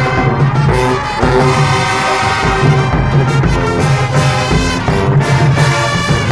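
High school marching band playing loudly, the brass holding sustained chords over a low beat that falls about once a second.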